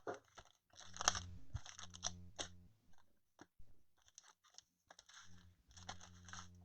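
Faint crinkling and rustling of trading-card packs and cardboard boxes being handled, in short irregular bursts.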